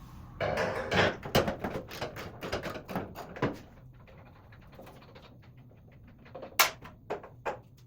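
Ratchet wrench clicking in quick runs as wheelbarrow bolts are turned out, then three sharp separate metal clicks near the end.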